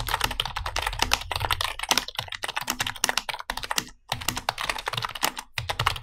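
Fast two-handed typing on a Dell KB212-B slim membrane keyboard: a rapid, dense run of key clicks with a short break about four seconds in.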